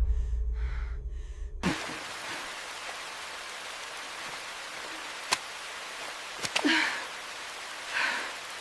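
A low music-like drone cuts off about two seconds in, giving way to steady rain hiss. Two sharp ticks and a couple of soft swells come near the end.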